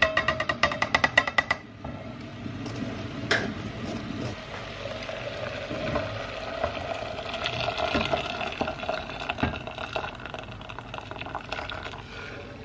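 A metal mesh strainer is tapped quickly against the rim of a steel pot as rinsed red lentils are knocked into it. Then water is poured from a kettle into the pot of lentils and vegetables, a steady splashing pour that stops near the end, with a wooden spoon stirring.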